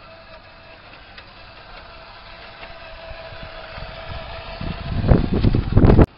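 Tamiya 1/14 radio-controlled truck running: a faint steady whine from its motor and gearbox, growing louder as it comes close, with a loud rumbling in the last second or so that cuts off suddenly.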